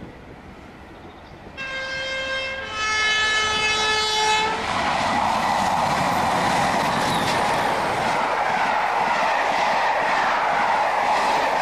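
Two-tone horn of Class 31 diesel locomotives sounded on the approach: a higher note of about a second, then a lower note held a little longer. The locomotives and their coaches then pass close by, with engine and wheel noise.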